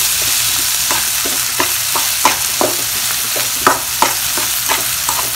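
Chopped carrots, beans and tomatoes frying in hot oil in a kadai: a steady sizzle broken by frequent sharp crackles and pops.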